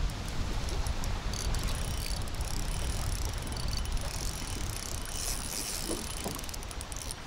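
Wind buffeting the microphone and water lapping at a kayak, with runs of fine rapid clicking from a baitcasting fishing reel as a hooked bass is played and reeled in.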